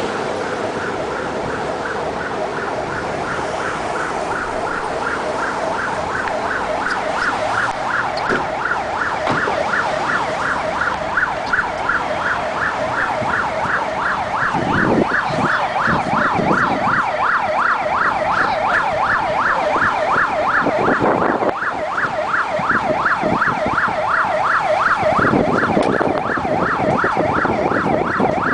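Fire department emergency vehicle siren sounding a fast yelp, rising and falling about four times a second and growing louder over the first several seconds. A few short low rumbles break in partway through.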